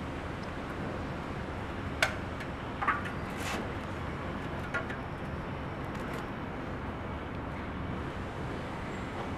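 A few sharp knocks and clicks from a glued wooden strip and a glue tube being handled on a concrete floor, the first about two seconds in the loudest, over a steady background hum.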